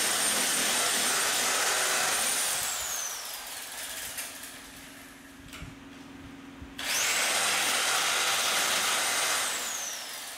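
Reciprocating saw cutting, in two runs of about three seconds each. Each time the motor's whine rises as it starts and falls slowly away after the trigger is released.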